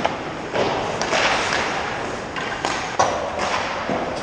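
Hockey skates scraping across the ice in repeated hissing strokes, with a few sharp clacks of sticks and pucks.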